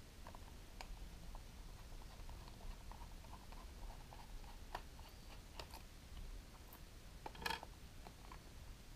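A small screwdriver unscrewing a screw from the plastic back housing of a Parkside cordless LED work light: faint scraping ticks and creaks, with a few sharper clicks. Near the end comes a louder clattering knock as the screwdriver is set down on the wooden table.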